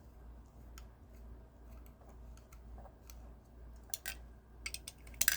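A small screwdriver backing tiny screws out of the base of a die-cast model truck: faint scattered clicks and ticks of metal on metal, with a few sharper clicks near the end.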